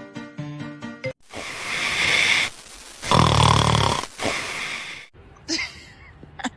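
Music breaks off about a second in and gives way to two long, loud snoring breaths. The second breath is the louder, with a deep rattle. Fainter sounds follow near the end.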